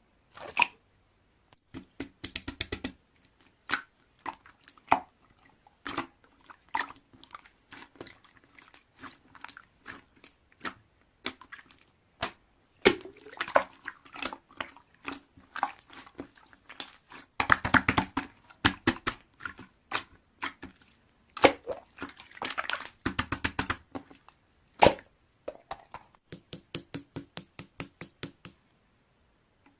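Slime being pressed and worked by hand, giving wet crackling and clicking pops, with several quick rapid-fire runs of small pops.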